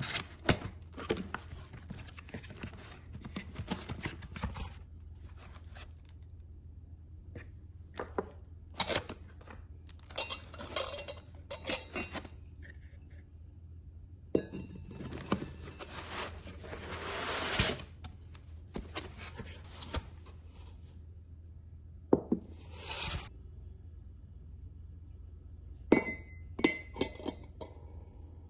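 Unboxing a ceramic infuser mug: cardboard flaps rustling and tapping, then a longer rubbing sound about halfway through as the mug is pulled from its foam packing. Near the end come a few sharp clinks as the ceramic mug, its stainless steel infuser basket and its lid are set down on a hard surface.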